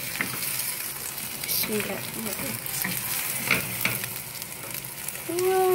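Egg omelette with chopped shallots sizzling steadily in hot oil in a frying pan, with a few short scrapes and knocks of a wooden spatula against the pan as the omelette is turned over.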